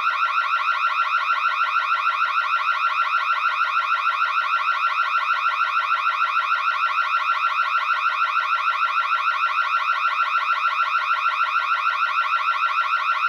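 Fire alarm sounding: a steady tone pulsing rapidly and evenly without a break.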